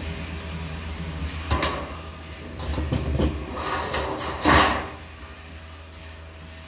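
A galvanized sheet-metal duct stack being cut with tin snips and moved about on a plywood bench: a few sharp metallic knocks and rattles, the loudest about four and a half seconds in. A steady low hum runs underneath.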